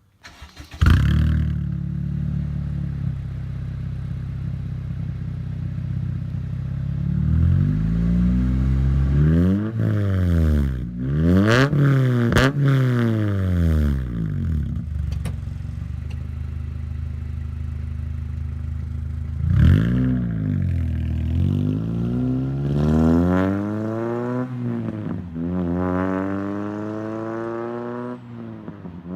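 Acura RSX Type S 2.0-litre four-cylinder engine through a straight-piped exhaust, starting up about a second in and settling into a steady idle. It is then revved again and again with quick rises and falls in pitch: a cluster of blips in the middle, one near two-thirds of the way, and a run of revs near the end.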